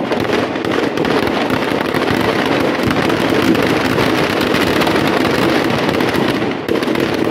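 Firecrackers packed into a burning Dussehra effigy going off in a dense, continuous crackle of rapid bangs.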